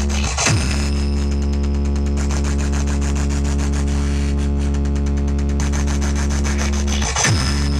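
Large DJ sound-box setup playing a loud, steady, deep bass test tone as a sound check. A short swooping dip in pitch breaks it about half a second in and again near the end.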